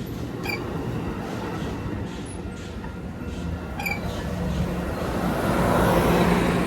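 A train rolling past with a steady rumbling noise that grows louder towards the end, and a couple of brief sharp clicks along the way.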